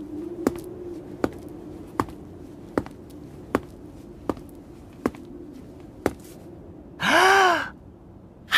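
Footsteps, one evenly spaced step about every three-quarters of a second, then a man drawing a deep breath with a rising-and-falling voiced note and letting it out in a sigh at the very end.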